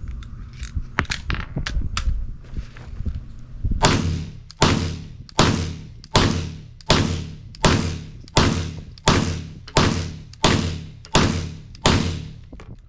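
A few sharp clicks and knocks from the SIG M17 9mm pistol, then about a dozen shots fired at a steady pace of roughly one every 0.7 s, each with a ringing tail.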